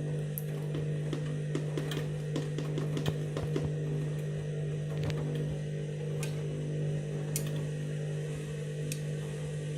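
Candy washing machine running before its final spin, drum turning slowly with wet bedding: a steady low hum with scattered light clicks and knocks.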